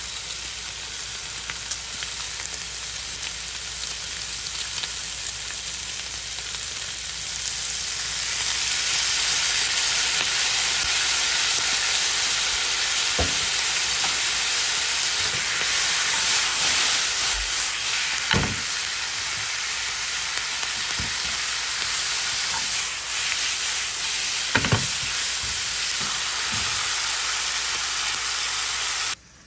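Pork slices and green peppers sizzling in a hot frying pan during a stir-fry. The sizzle grows louder about eight seconds in, as the soy, sesame oil and wasabi sauce goes into the pan, with a few sharp knocks of the spatula against the pan. The sound cuts off suddenly just before the end.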